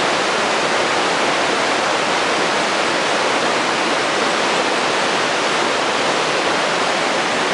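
Rushing water, a loud, steady and even rush that does not change.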